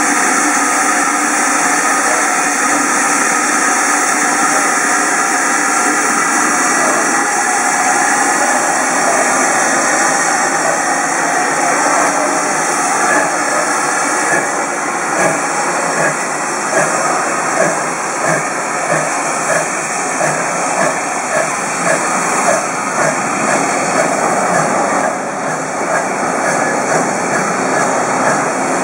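Great Western 57xx-class pannier tank steam locomotive 3650 with steam hissing steadily, then starting away with its train: from about halfway through, its exhaust beats come regularly at roughly one and a half a second.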